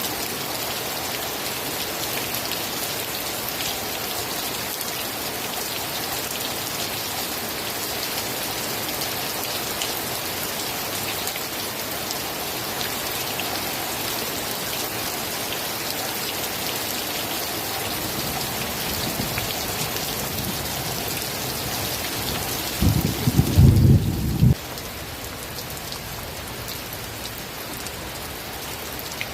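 Steady heavy rain falling in an even hiss. About three-quarters of the way through, a short low rumble of thunder is the loudest sound. Right after it, the rain drops suddenly to a quieter level.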